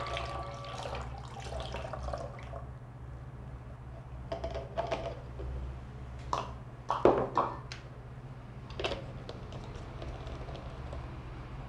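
Honey-water being poured from a glass cup through a plastic funnel into a spray bottle, ringing briefly at the start. A few separate clicks and knocks follow as the plastic funnel and bottle are handled.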